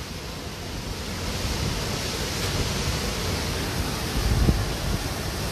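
Cyclone-force wind blowing in a steady rush of noise and buffeting the phone's microphone with low rumbles, with a stronger gust about four and a half seconds in.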